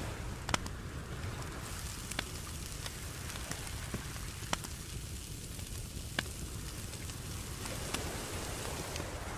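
Butter-marinated lobster tails sizzling on a small charcoal grill: a steady hiss that sets in about two seconds in, with scattered sharp pops and crackles.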